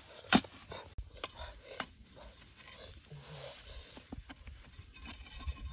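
A short-handled digging tool striking and scraping dry earth in irregular blows, the sharpest knock about a third of a second in, the rest fainter.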